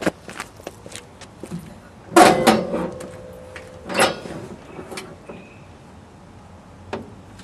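Hood of a 1954 Ford F-100 pickup being unlatched and swung up. There is a clank with a brief metallic creak about two seconds in, a second sharp clunk about four seconds in, and light clicks around them.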